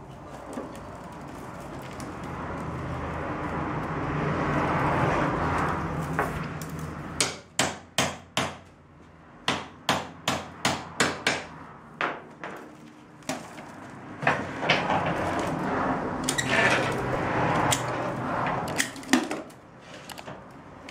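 Willow rods rustling and scraping as they are woven through the stakes of a willow basket, with a run of a dozen or so sharp knocks in the middle, about three a second.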